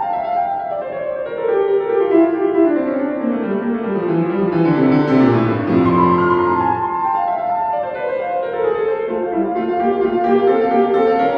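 Solo classical piano playing: quick runs sweep down into the bass over the first six seconds or so, then rising figures return in the middle register.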